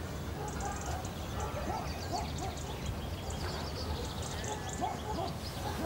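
Outdoor rural ambience: small birds chirping over and over, with some short lower animal calls and a steady low rumble underneath.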